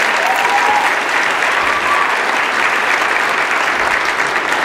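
Audience applauding steadily in a large room after a children's song.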